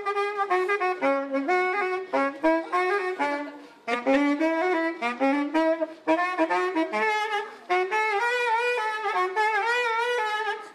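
A saxophone playing a slow, stepwise melody, with short pauses about four seconds in and again near eight seconds, and a wavering tone on the later notes.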